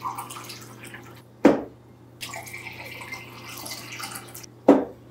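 Water pouring from a stainless steel kettle into a drinking glass, in two separate pours. Each pour is cut off by a short, sharp thud, about a second and a half in and again near the end.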